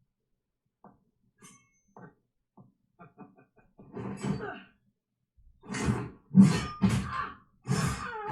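A few faint short clicks, then a person's voice in four short, harsh bursts about half a second apart, coughing or grunting in strain.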